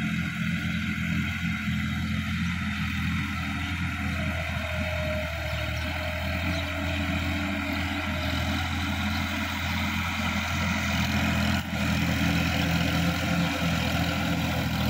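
Sonalika DI-50 RX tractor's diesel engine running steadily under load as it tills a wet, muddy paddy field, getting a little louder about three quarters of the way through.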